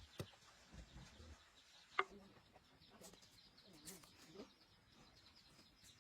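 Near silence with faint, short bird chirps, broken by a sharp knock about two seconds in and a smaller click at the very start.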